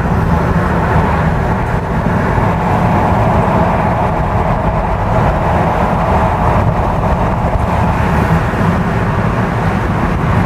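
Steady wind and road noise inside a Ford Bronco Raptor's cabin at highway speed, about 90 km/h, with a window a quarter open: a constant low rumble under an even rush of air.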